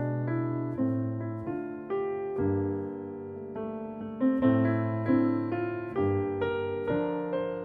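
Background piano music: single notes and chords struck one after another and left to ring and fade.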